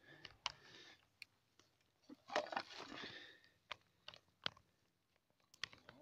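Faint crunching and clicking of footsteps on twigs and sawdust on the forest floor, in short irregular bursts with sharp clicks between.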